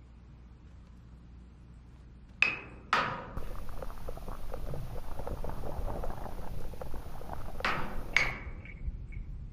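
Steel dumpsters played as percussion: two ringing metallic hits about two and a half seconds in, a dense crackling, rattling texture through the middle, then two more ringing hits near the end.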